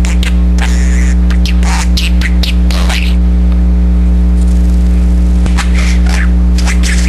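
Budgerigar chattering in quick, high, scratchy calls and warbles, pausing for about two seconds midway, over a loud steady low electrical hum.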